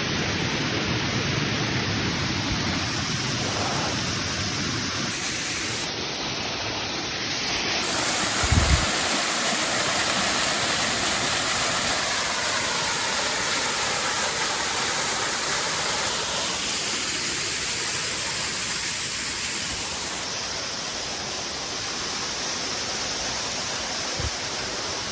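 Waterfall rushing steadily, an even hiss of falling water. A brief low thump comes about a third of the way in, with a smaller one near the end.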